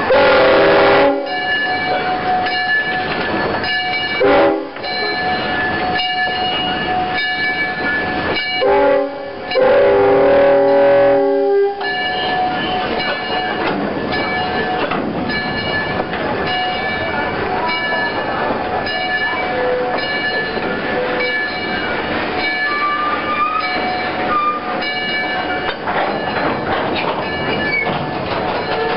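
Passenger train rolling slowly past close by, its wheels clacking and squealing on the rails. The locomotive sounds its horn several times: a blast at the start, a short one about four seconds in, then a short and a longer one from about nine to twelve seconds.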